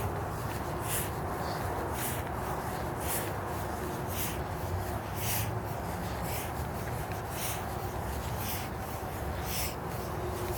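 Footsteps scuffing along a walking path, one crisp step about every second, over a steady low rumble.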